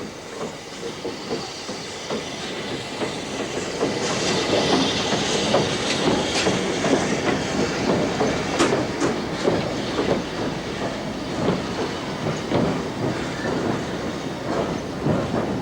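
Great Eastern class J15 0-6-0 steam locomotive and its train running by, with wheels clattering over rail joints and steam hissing. It grows louder over the first few seconds as it draws near.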